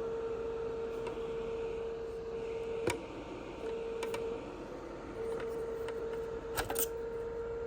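Small cooling fan in a hard drive docking station running with a steady whir and a hum-like tone. There are a few sharp clicks about three seconds in and again near the end.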